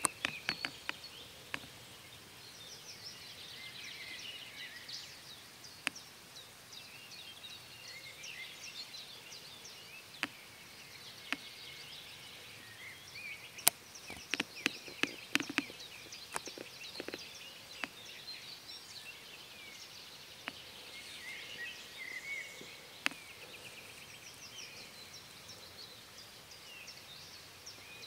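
Meadow ambience: distant birds singing in high chirps and trills, with scattered sharp clicks that are loudest and most bunched about halfway through.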